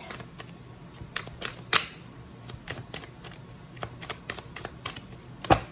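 Tarot cards being shuffled by hand: a run of light, irregular snaps and taps, several a second, with one louder snap near the end.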